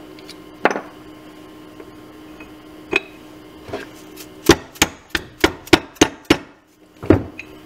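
Hammer blows on a golf cart's steel leaf-spring bracket, driving off a sleeve rusted onto its bolt. A few single blows, then a quick run of about seven blows at about three a second, and one last blow near the end.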